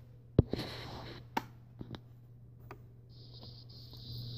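Sharp clicks and light knocks of a partly disassembled G660 chainsaw being handled and shifted on a metal bench, the loudest about half a second in, over a steady low hum. A steady high hiss comes in about three seconds in.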